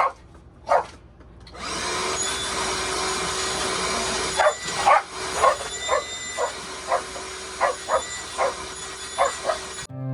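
A vacuum cleaner switches on about a second and a half in and runs steadily, then stops near the end. A dog barks repeatedly over it, about a dozen short barks in the second half.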